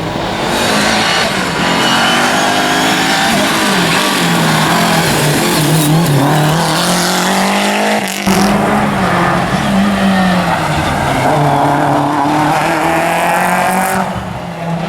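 Rally car engine running hard, its note rising and falling repeatedly as the driver works the throttle and gears. There is a sharp break in the sound about eight seconds in.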